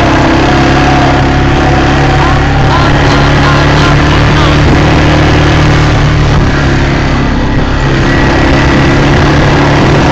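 A motor engine running steadily at an even pitch, with wind buffeting the microphone as the vehicle moves.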